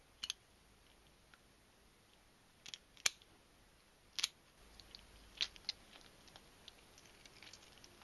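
Kitchen scissors snipping through a small largemouth bass as it is gutted. There are a few short, sharp snips, the loudest about three and four seconds in, then softer scattered clicks as the fish is handled.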